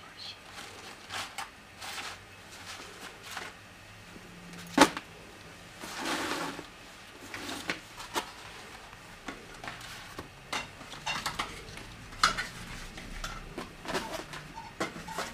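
Dishes and cutlery clinking and knocking on a cloth-covered table as a meal is laid out, with one sharp knock about five seconds in and a brief rustle a second later.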